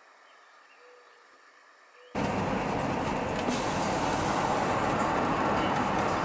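A faint hiss at first, then an abrupt cut about two seconds in to loud, steady road noise of a car driving: tyre and wind rumble heard from inside the cabin.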